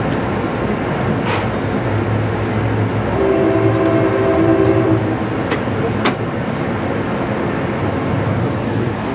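Steady rolling noise of a passenger train heard from on board, with the EMD F59PH locomotive's horn sounding one chord for about two seconds, a few seconds in. Two sharp clicks cut through the rolling noise.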